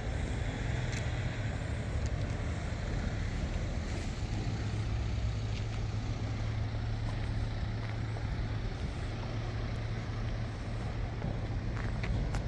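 Steady low hum of a car ferry's machinery running while it lies at the ferry ramp, over an even background rush.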